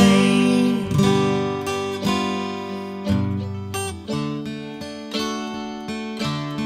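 Acoustic guitar playing an instrumental break in a slow blues: single notes and chords picked one after another, each ringing out and fading before the next.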